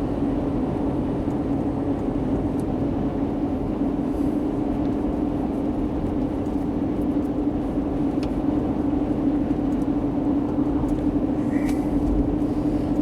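Steady engine and road drone inside a moving all-wheel-drive vehicle with a naturally aspirated 6-litre engine, cruising at an even speed.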